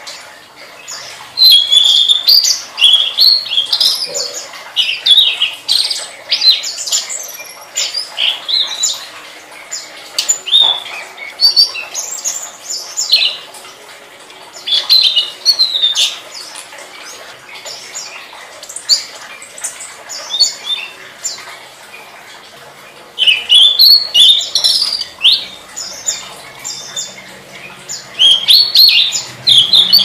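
A tledekan songbird singing in lively bursts of rapid, varied high chirps and twitters, with a sparser, quieter stretch about halfway through.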